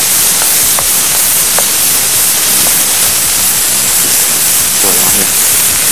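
Vegetables frying in a hot pan, a steady sizzling hiss, with a few light clicks of a utensil.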